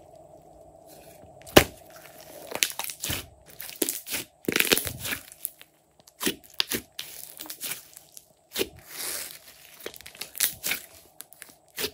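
Thick purple slime being kneaded, folded and squeezed by hand, giving irregular sharp pops and crackles as trapped air bursts, between stretches of sticky tearing noise. The loudest pop comes about a second and a half in.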